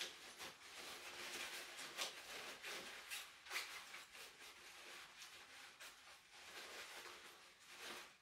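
Paper towel rustling and crinkling in the hands as a small chainsaw part is wiped clean, with many small crackles and a few sharper ones.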